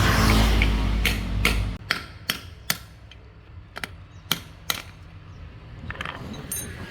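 A motor runs with a steady low hum and cuts off suddenly about two seconds in. A string of sharp metallic clicks and taps follows, about eight of them spaced under a second apart, typical of hand tools working on metal parts.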